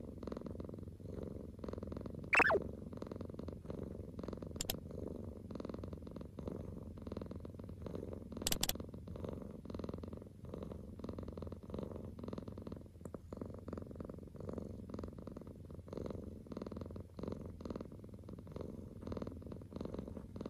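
Tabby-and-white cat purring steadily, close to the microphone. About two seconds in, a short tone falls sharply in pitch, and a couple of faint clicks follow later.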